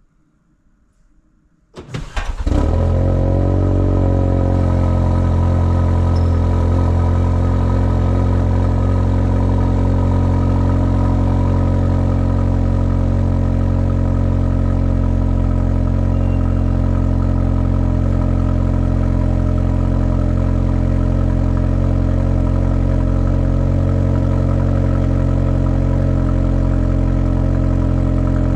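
Ford Focus ST engine cold-started: about two seconds in it cranks and catches with a brief flare, then settles into a steady idle.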